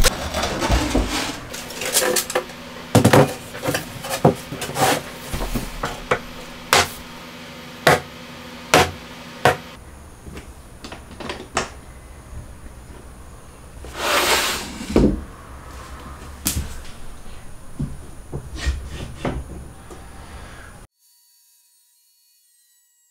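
Clicks, knocks and light scrapes of aluminium extrusion rails and plastic clamping knobs being handled and fitted on a wooden board. The clicks come thick and fast in the first half, with a longer scraping sound about 14 seconds in.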